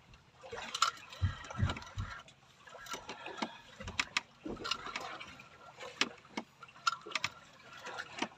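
Water slapping against the hull of a small wooden fishing boat at sea, with irregular knocks and clicks scattered throughout.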